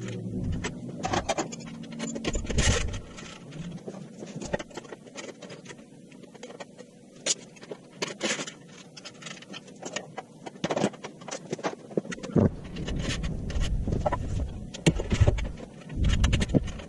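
Sped-up workshop sound of a steel CNC plasma table being assembled: a rapid, irregular clatter of clicks, knocks and scrapes. Patches of low rumble come in over the last few seconds.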